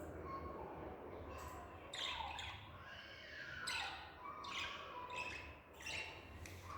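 Budgerigar chirping and squawking: a string of short, harsh calls, several of them falling in pitch.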